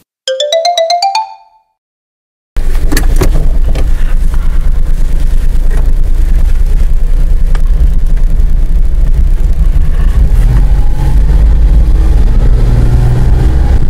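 A short rising electronic jingle, then after a brief gap a vehicle driving: a loud, steady low rumble of engine and road noise.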